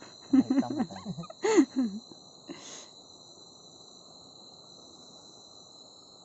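Crickets chirring steadily in a night-time chorus over a low hiss, with a man's voice heard briefly in the first two seconds.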